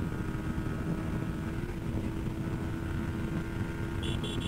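Yamaha R15's 155 cc single-cylinder engine running at a steady pitch while ridden, with a low rumble of wind and road noise. Near the end come several short high beeps in quick succession.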